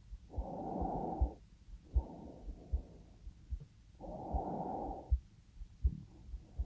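A young woman's slow breathing heard up close: a full breath about every four seconds, with a softer breath between. A low, regular heartbeat thuds underneath throughout.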